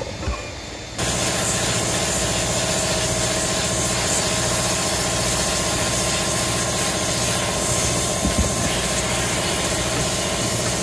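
Sandblast cabinet gun blasting a steel motorcycle brake disc: a loud, steady hiss of compressed air and grit that starts suddenly about a second in and holds without a break, with a steady hum underneath.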